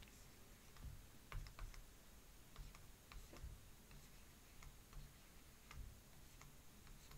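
Stylus writing on a tablet: faint, irregular light taps and clicks.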